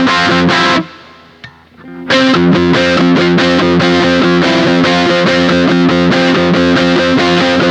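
Ibanez AX120 electric guitar played through a Boss Katana 50 amp with distortion: rapidly picked, repeated chords. They stop about a second in, pause for about a second, then start again.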